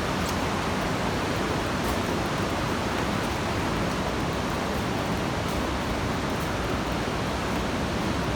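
Steady rush of the fast-flowing Coquihalla River, an even wash of water noise that holds constant throughout.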